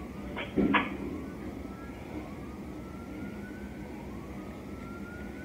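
Emergency vehicle siren wailing in slow rising sweeps, one every second and a half or so, over a steady low rumble. Two short sharp bangs just under a second in are the loudest sound.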